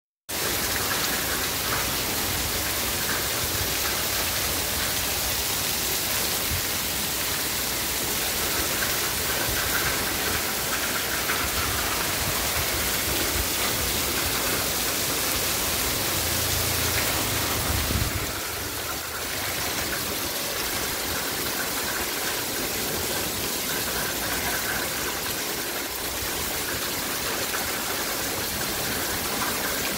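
Heavy rain pouring steadily onto a street, a dense even hiss of falling water.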